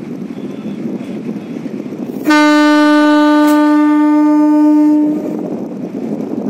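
A boat's horn sounds one long steady blast of about three seconds, starting suddenly a couple of seconds in and cutting off cleanly. Before and after the blast there is a low drone of wind on the microphone and the boat's motor.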